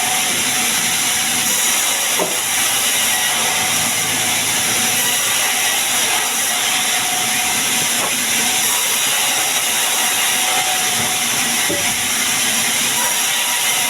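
Sawmill saw running steadily while cutting sengon wood, a loud, even hiss.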